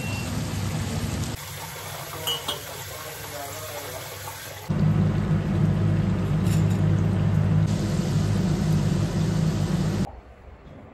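Gujhias sizzling as they deep-fry in hot oil in an iron kadhai: a loud steady frying noise with a low hum under it, starting about halfway through and cutting off abruptly near the end. Before it, quieter cooking sounds with a couple of light clinks.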